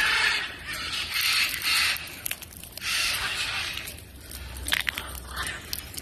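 Blue-and-yellow macaws giving three harsh, raspy squawks, followed by a few sharp clicks near the end.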